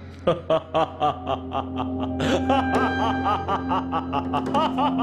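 A man laughing in a long string of rapid 'ha-ha-ha' peals, several a second, over background music with a held low note.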